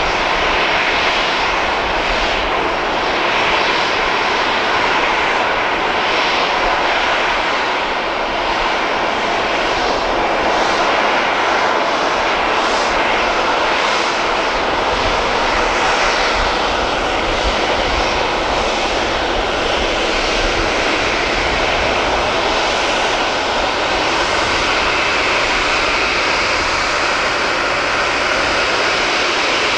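Boeing C-40C's two CFM56-7 turbofan engines running at taxi power: a steady jet rush and whine as the aircraft taxis.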